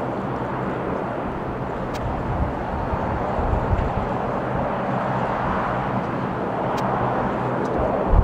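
Twin-engine widebody jet airliner taking off, its engines at takeoff thrust making a steady, distant rushing noise as it lifts off and climbs away. Wind buffets the microphone in low gusts, most strongly near the end.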